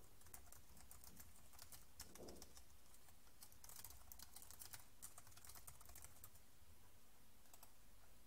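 Faint computer keyboard typing: a run of quick key clicks, busiest in the middle.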